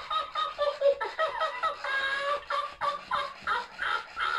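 Tickle Me Elmo plush toy laughing: a recorded, rapid, high-pitched cackle of short choppy 'ha' syllables, several a second, without pause.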